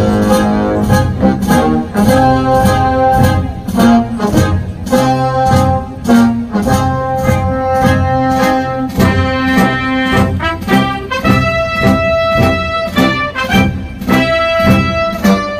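Brass band music with a steady beat, about two beats a second.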